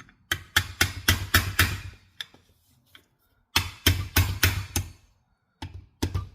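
Quick runs of light hammer taps driving a trigger-group pin into a Remington 760 receiver, about five strikes a second, in three bursts.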